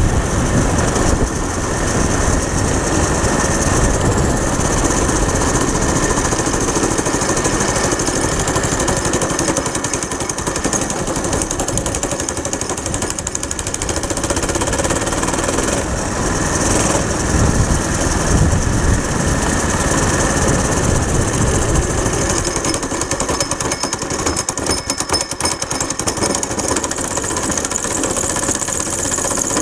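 Go-kart's Predator single-cylinder engine running steadily while under way. Near the end, at low speed, it bogs, as if the clutch were still engaged.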